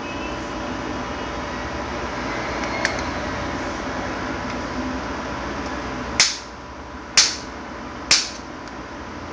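Adjustable chest expander's metal mechanism giving three sharp clicks with a short metallic ring, about a second apart in the second half, after one fainter click. A steady background hum runs underneath.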